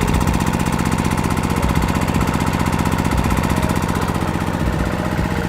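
Small 800-watt portable petrol generator running under a heavy electrical load of about 1000 watts, its engine holding steady revs with a rapid, even firing beat.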